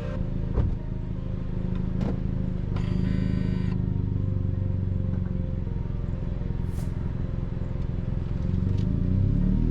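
2022 Honda Civic Sport under way, with its 2.0-litre four-cylinder engine running under steady tyre and road noise, picked up near a rear wheel. There is a thump just under a second in and a short high-pitched tone about three seconds in. Near the end the engine pitch rises as the car accelerates.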